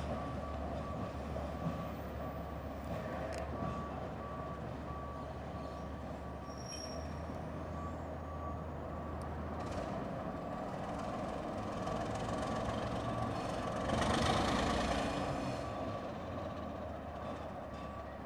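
Baldwin diesel switcher locomotive running at low speed with a steady low engine drone. A regular series of high beeps sounds through the first half, and a brief louder rush of noise comes about three-quarters of the way through.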